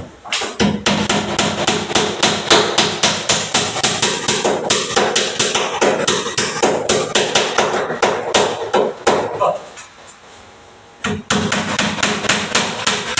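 Hammer blows in a fast, steady rhythm, about four or five a second, stopping for a second or so near the end before starting again.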